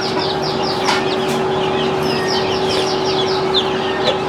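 Many chickens chirping together in a dense run of short, high, falling peeps, over a steady hum.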